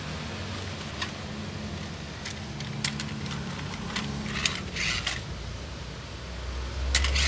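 Plastic clicks and rattles as a toy 1:16 RC rock crawler is handled and turned over, a few sharp ticks spread out with a louder rattle near the end, over a steady low hum.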